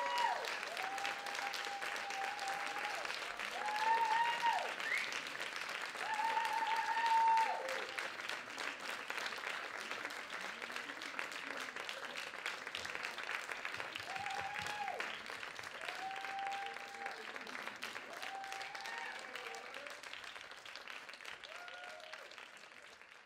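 Audience applauding, with repeated long, high-pitched whooping cheers over the clapping; the applause fades away near the end.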